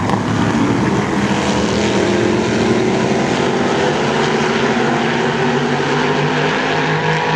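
Engines of several modified race cars running together, a loud steady drone with several engine notes at once.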